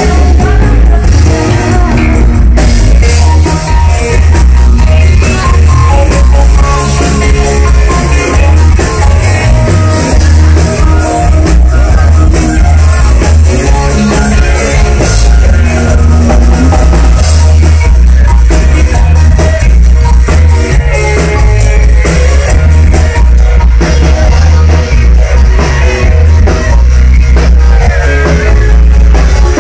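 Loud live band music: drum kit, guitar and heavy bass playing an instrumental passage with a steady beat.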